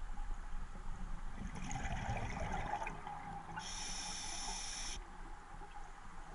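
Scuba diver breathing through a regulator underwater: a rumbling burst of exhaled bubbles, then a loud hiss of inhaled air through the demand valve for over a second, cutting off sharply.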